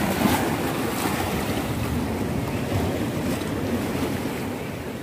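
Seawater washing and lapping among shoreline rocks, with wind buffeting the microphone.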